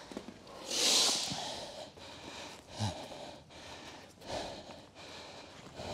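A person breathing hard, catching their breath after exertion: a loud, hissing exhale about a second in, then slower breaths in and out every second or so.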